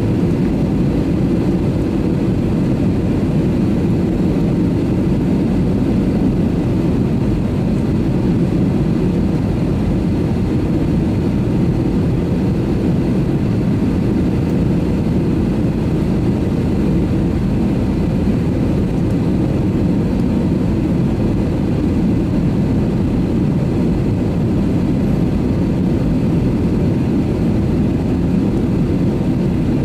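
Steady low rumble of an Airbus A320neo's jet engines running, with a faint steady whine above it and no change in level.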